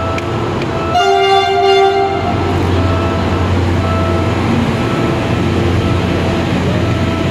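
PNR CC300 diesel locomotive sounding its horn in one loud blast of about a second, starting about a second in, while its engine rumbles steadily as it and its coaches pass through a level crossing.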